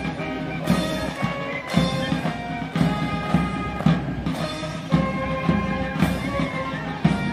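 Military band playing a march: wind instruments carry the melody over a drum beating about once a second.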